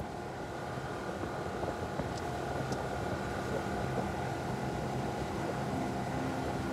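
Outboard motor running steadily at speed, driving an inflatable boat across open water, with the rush of wind and water.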